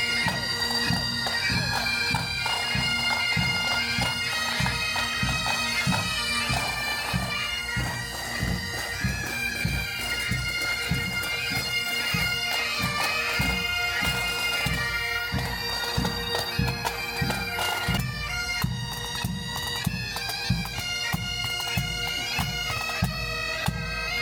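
Pipe band playing a march: bagpipes with a steady drone under the chanter melody, and drums beating about twice a second.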